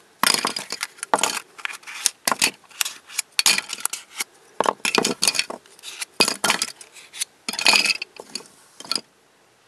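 Hard plastic pieces of a Twist Ball puzzle being pulled apart and set down, giving irregular clicks, clacks and short rattles that stop about nine seconds in.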